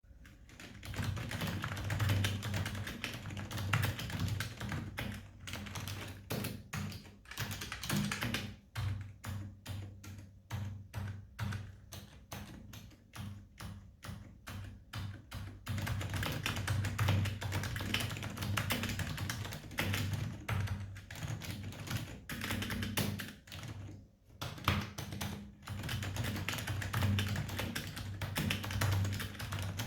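Typing on a 1999 Acer 6311 mechanical keyboard with lubed Acer switches, a buckling-spring-like hammer-over-membrane mechanism: a steady run of rapid keystroke clacks with a few brief pauses.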